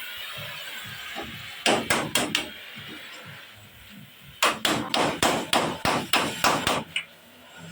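Hammer blows on the bed of an Isuzu Elf truck under repair: a quick run of about four strikes, then, a couple of seconds later, an even run of about ten strikes at a little over two a second.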